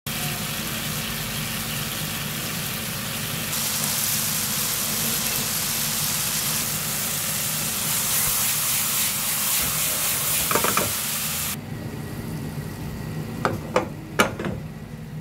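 Tomatoes, onions and sausage slices sizzling as they fry in a pan. About two thirds of the way through, the sizzle drops abruptly to a quieter frying under eggs in the pan, with a few sharp taps near the end.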